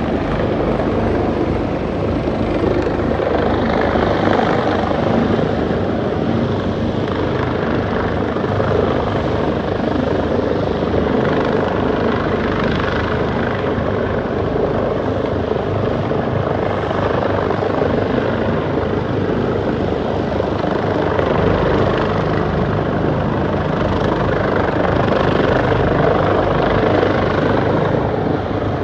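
Los Angeles Fire Department helicopters flying low overhead: loud, steady rotor and turbine-engine noise that swells and eases a little as they circle.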